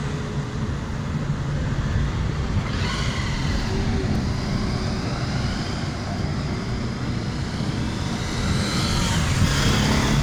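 Road noise inside a moving car: a steady low engine and tyre rumble, swelling with louder passing traffic about three seconds in and again near the end.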